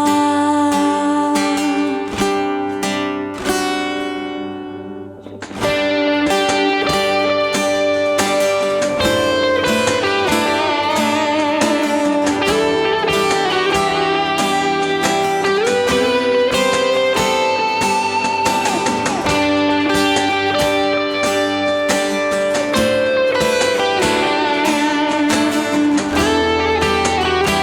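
Live worship band playing an instrumental passage without singing: strummed acoustic guitars, an electric guitar line and percussion. The music thins out and dips about four to five seconds in, then the full band comes back in.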